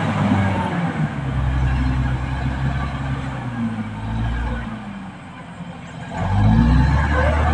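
Caterpillar D6R XL bulldozer's diesel engine running under working load, easing off about five seconds in and revving back up near the end.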